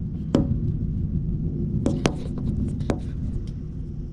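Thunder rumbling low and steady, with a few sharp clicks over it.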